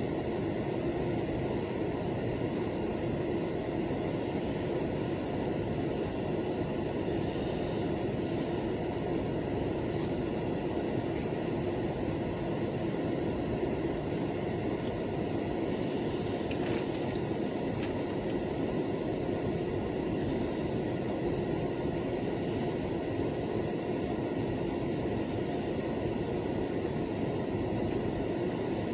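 Buffalo & Pittsburgh local freight train passing, a steady, even train noise with a constant low tone, and a couple of brief clicks around the middle.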